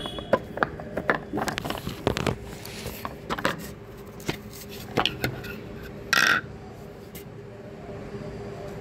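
Light plastic clicks and knocks as a manual vegetable chopper's parts are handled and taken apart, with a short hiss about six seconds in.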